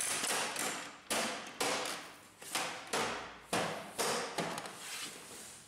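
Plastic side panel of a Canon inkjet printer being pressed and fitted onto the printer body by hand: a series of about eight short plastic knocks and scrapes, roughly one every half second, getting fainter toward the end.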